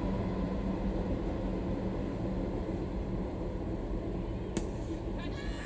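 Steady low background rumble, with one sharp crack about four and a half seconds in: a cricket bat hitting the ball.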